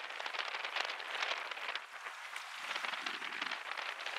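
Outdoor waterfront ambience: a steady crackling hiss, with a faint low rumble joining in for about a second near the three-second mark.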